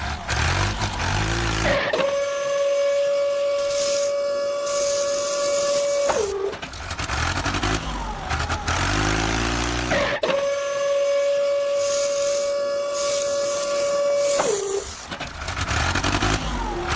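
Added truck sound effects: a low engine rumble that changes in steps, broken twice by a long steady whine that drops in pitch as it stops.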